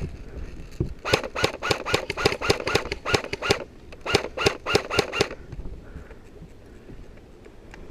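Airsoft gun firing rapid single shots, about four a second, each with a short ring. One string of about a dozen shots, then after a brief pause five or six more.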